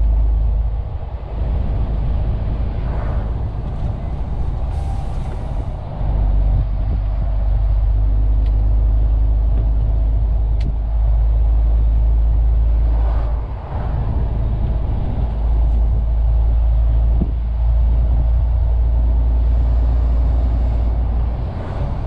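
MAN TGX 470 truck's six-cylinder diesel engine and road noise heard from inside the cab while driving: a steady low rumble that dips briefly a few times, with a short hiss about five seconds in.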